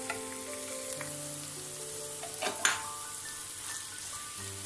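Ground beef and sliced green peppers sizzling in a frying pan as they are stirred with a wooden spoon, with a sharp knock about two and a half seconds in. Soft background music with held notes plays underneath.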